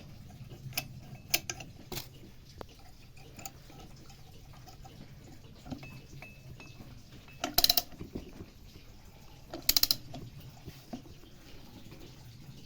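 Scattered clicks and knocks of hand tools or metal parts being handled, with two short bursts of rapid ratcheting clicks, one a little after halfway and another about two seconds later.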